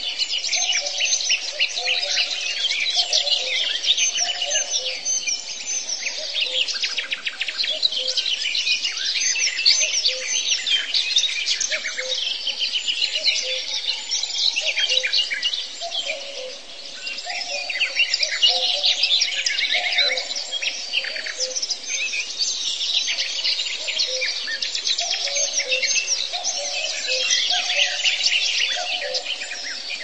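A dense chorus of many songbirds chirping and trilling without pause, with quieter low notes repeating underneath.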